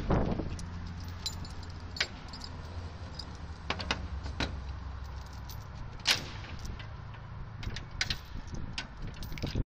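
Heavy metal link chain clinking and rattling as it is drawn through the bars of a steel gate, in scattered sharp clinks, with a louder clank at the start and another about six seconds in. A steady low rumble runs underneath.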